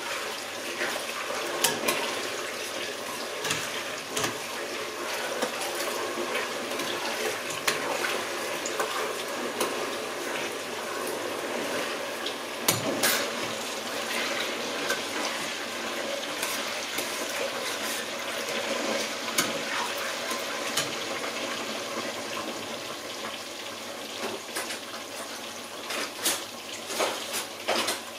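Stew frying and bubbling in a steel pot on the stove with a steady sizzle, while a metal spoon now and then clicks and scrapes against the pot as it is stirred.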